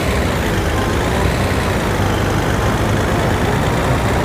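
Heavy truck engine running steadily with a deep low rumble.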